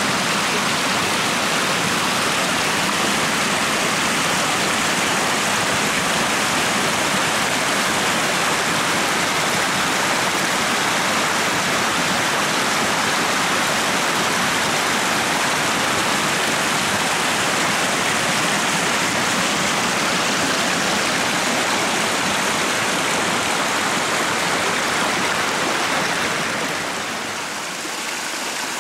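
Small hillside brook rushing and splashing over stones, a steady, even rush of water that eases slightly near the end.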